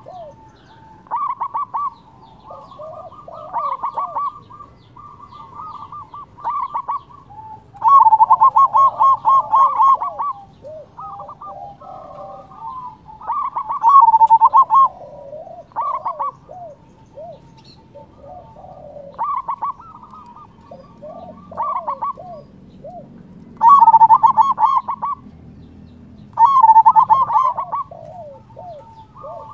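Zebra dove (perkutut) cooing: loud phrases of quick pulsed coos recur every few seconds, with softer bird calls between them.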